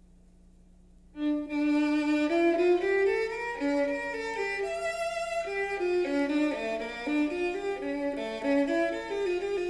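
A faint steady hum, then about a second in, recorded violin music starts playing through a Western Electric 1126 and 59 amplifier chain into a Western Electric 4165 loudspeaker.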